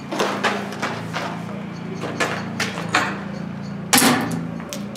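Footsteps crunching on a gritty concrete floor, then a single sharp shot just under four seconds in from a pump-action airsoft shotgun fired at a target; the shot misses.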